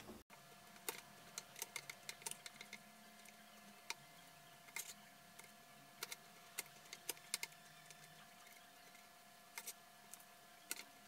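Faint, sharp, irregular knocks of a cleaver chopping ribbon fish into pieces on a bamboo cutting board, in sped-up playback, over a faint steady hum.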